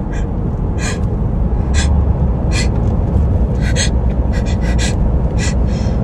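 A person with hay fever taking a string of short, sharp sniffs and gasping in-breaths, the build-up to a sneeze, over a steady low rumble.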